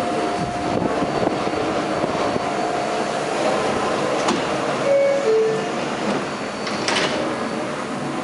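An R142A subway train's door chime: two short tones, the second lower, about five seconds in, then the doors knocking shut about seven seconds in, over the steady hum of the stopped train.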